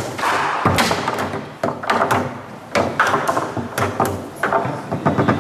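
Foosball being played on a Leonhart table: sharp knocks and clacks as the plastic men strike the ball, the ball hits the table walls and the rods knock against their stops. The knocks come at irregular intervals and turn into a quick rattling run near the end.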